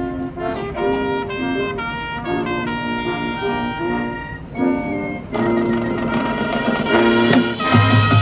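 Marching band playing, its brass section sounding held notes in short phrases, the full band coming in louder from about five seconds in.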